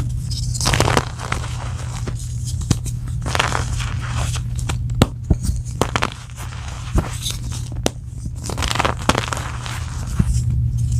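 Soft gym chalk blocks coated in blue powder being crushed: crumbly crunching and crackling with many sharp little clicks, over a steady low hum.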